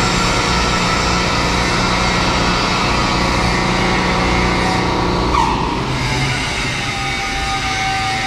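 Steady industrial machinery noise: a low rumble and hiss with a few high, steady whining tones. A brief sliding tone comes about five seconds in.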